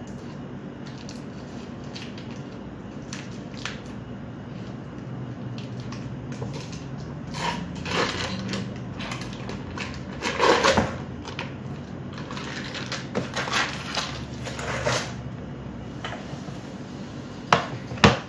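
Foil wrapper of a cream cheese block being peeled and crinkled as the cheese is pressed out into a stainless steel mixing bowl, in irregular rustles over a steady low hum. There is a sharp clunk near the end as the metal bowl is set on a kitchen scale.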